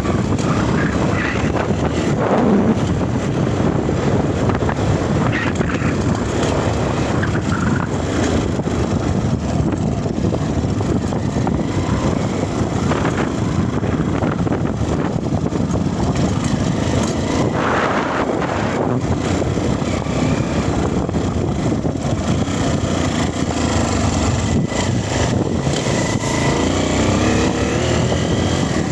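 Dirt bike engine running under way, mixed with rushing wind noise; its pitch climbs as it revs up near the end.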